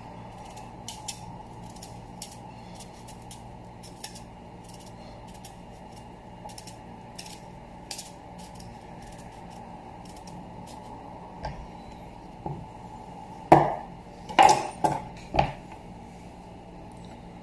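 Kitchen knife working on a beetroot over a plastic cutting board: faint scattered clicks and scrapes as the blade shaves off the skin, then four or five sharp knocks of the knife and beet against the board near the end.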